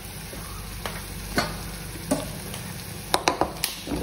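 Food sizzling steadily in a pan on the stove, with a few sharp clicks: one about a second and a half in, one about two seconds in, and a quick run of four just after three seconds.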